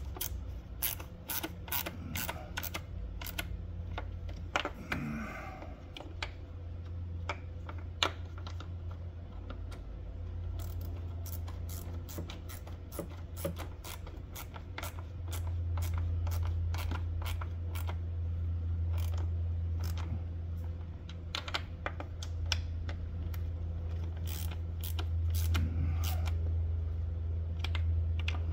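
Hand ratchet clicking in short irregular runs as bolts are run down one after another in a tightening sequence, over a steady low hum.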